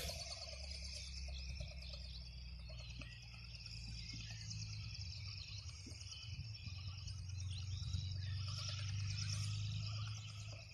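Wind rumbling on the microphone over a steady high chirring of evening insects.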